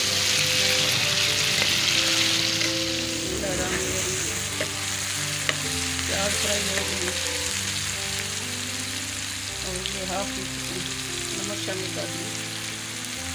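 Sliced onions and tomatoes sizzling in hot oil in a frying pan while a metal spoon stirs them, with sharp scrapes and taps of the spoon on the pan. The sizzle is loudest in the first few seconds and eases toward the end.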